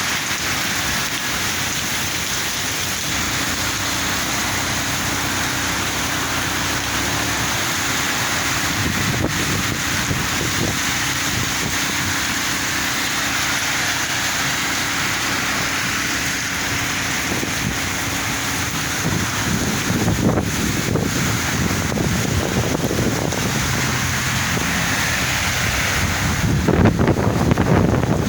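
Heavy rain pouring steadily onto the street. A low engine hum runs under it through much of the middle, and a louder low rumble comes in near the end.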